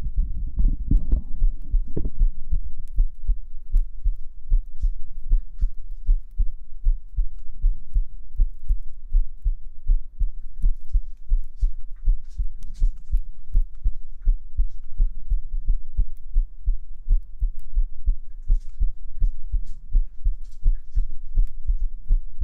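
A human heartbeat heard close up through a microphone: a steady, even run of low thumping beats.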